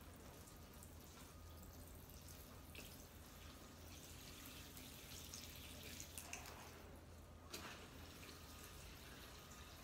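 Faint trickle and spatter of water poured from a plastic watering can onto potted plants.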